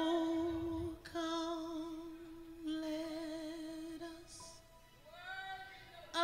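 A woman singing solo into a microphone, held, wordless-sounding notes with vibrato in a few long phrases separated by short breaths, the last one gliding upward.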